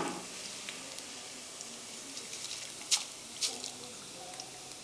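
Hot oil sizzling softly as thick poha (flattened rice) fries in a steel kadai and is scooped out with a metal slotted spoon, with a couple of sharp metal clicks about three seconds in.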